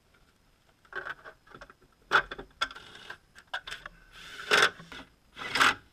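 Bosch 18V cordless impact driver running bolts into a car's underbody reinforcement plate in short bursts, the two longest about half a second each near the end, with clicks and clinks of bolts and tools in between.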